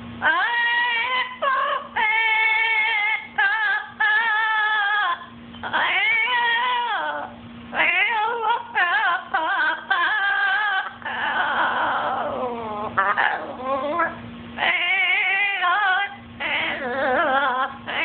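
Blue-fronted Amazon parrot singing in imitation of a human song: long, wavering sung notes in phrases of a second or two, with short breaths between them. A faint steady low hum sits under the pauses.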